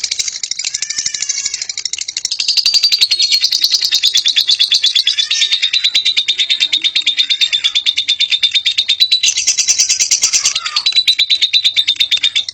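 Lovebird in ngekek song: a long unbroken run of very rapid, high, chattering notes. It grows louder about two seconds in and keeps going without a pause.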